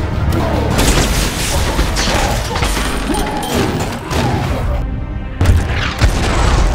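Action-film soundtrack: explosions, crashes and metal impacts over orchestral score music, with two sharp hits after a brief lull near the end.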